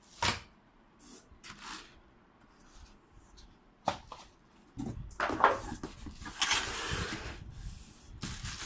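Packaging being handled while vacuum-cleaner accessories are unpacked: a few separate clicks and knocks, then from about five seconds in a longer spell of plastic and cardboard rustling with one sharp knock.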